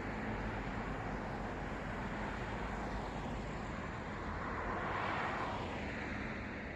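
Steady city road traffic: an even hiss of tyres and engines, with one vehicle passing closer about five seconds in, swelling and then fading away.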